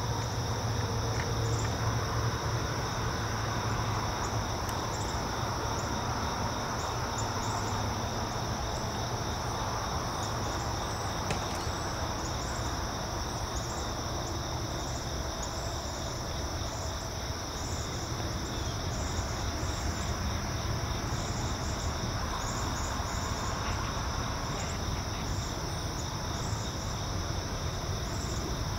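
A chorus of crickets and other insects trilling without a break, with a row of short chirps repeating higher up. A steady low rumble runs underneath.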